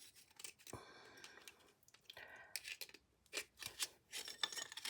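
Handling noise from putting together a small display easel: scattered clicks and a short creaking scrape about a second in, then a cluster of clicks near the end as the parts are worked to sit flush.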